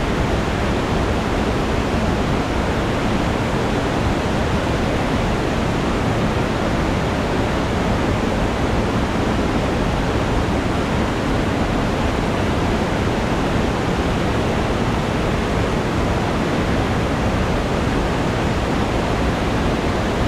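Waterfall pouring into a rocky gorge: a steady, unbroken rush of falling water, heaviest in the low and middle range.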